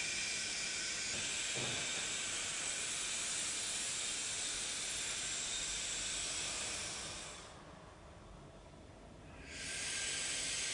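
Steady hiss of background recording noise with no speech. It drops out for about two seconds late on, then returns.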